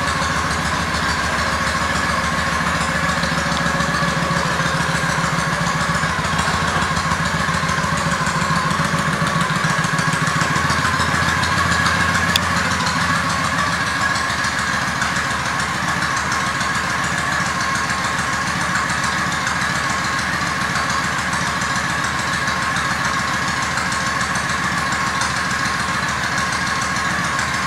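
2003 Honda Shadow 750 V-twin idling steadily through aftermarket Vance & Hines exhaust pipes, an even low pulsing beat.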